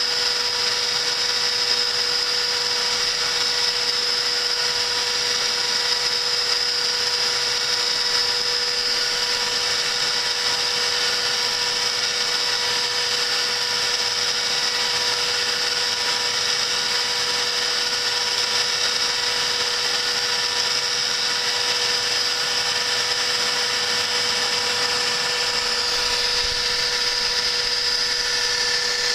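CNC router spindle whining steadily at high speed as its cutter counterbores holes for machine screws in an 8 mm metal plate; the pitch shifts slightly near the end.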